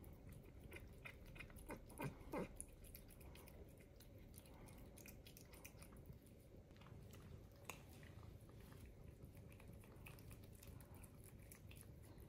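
Cat licking paste from a squeeze-tube treat, a quiet run of small wet tongue clicks, with two short louder sounds about two seconds in.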